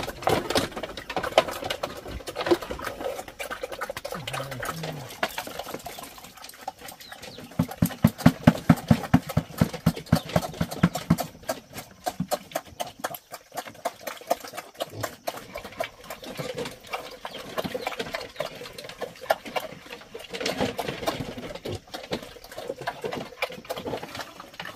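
Rapid, rhythmic knocking that goes on throughout, loudest and most regular, about four strokes a second, from about eight to eleven seconds in.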